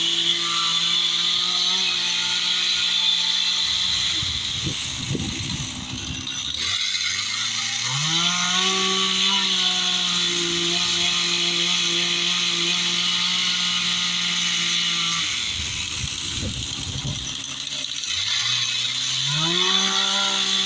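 Gas chainsaw held at full throttle while carving wood. It drops to a rough idle twice, about four seconds in and again about fifteen seconds in, and revs back up each time.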